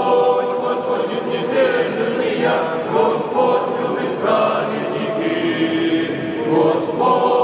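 Small Cossack choir singing an Orthodox liturgical chant a cappella, in slow held chords that change about once a second, in a church's resonant interior.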